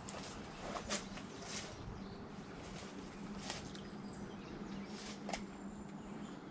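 Quiet pond-side outdoor ambience with faint bird calls and several brief rustles or clicks scattered through it.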